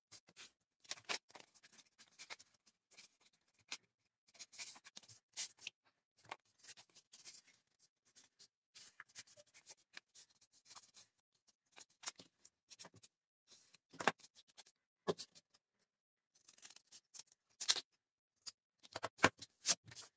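Sheet of coloured paper being folded and creased by hand: irregular rustling and crinkling, with a few sharper crackles as folds are pressed down, the loudest in the second half.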